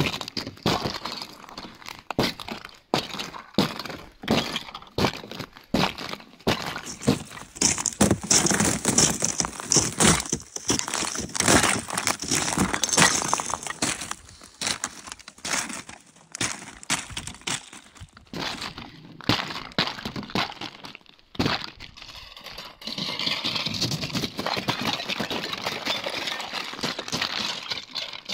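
Thin ice over shallow water cracking and breaking underfoot: an irregular run of sharp cracks, crunches and clinks of shards, becoming a steadier crunching near the end.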